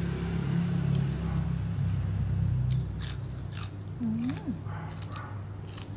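A person chewing and biting into crisp food, raw vegetables and papaya salad eaten by hand, with several sharp crunches in the second half. A low steady hum runs under the first half.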